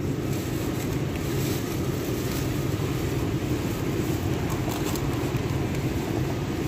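Steady low rumbling background noise of a supermarket floor, with a few faint rustles of plastic produce bags being handled.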